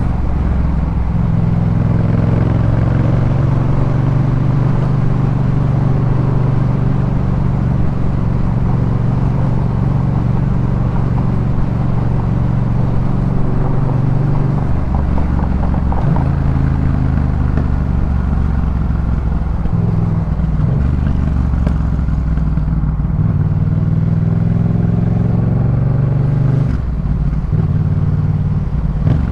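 2018 Yamaha MT-07's parallel-twin engine, breathing through a Jeskap K4 full aftermarket exhaust, running under way. The note holds steady for the first half, then moves up and down in steps with throttle and gear changes.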